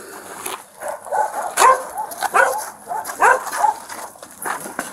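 Feral dogs barking, a run of short barks about twice a second starting about a second in.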